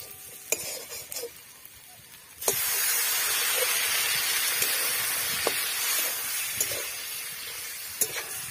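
Water poured into a hot wok of fried potatoes, soybean chunks and spices: a sudden loud hiss and sizzle about two and a half seconds in, slowly dying down. A few light clicks of the metal spatula come before it.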